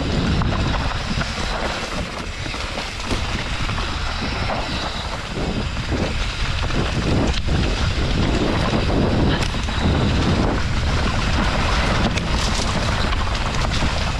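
Wind rushing over the microphone and mountain-bike tyres running on a loose dirt trail during a fast descent, with the bike clattering and knocking over bumps throughout.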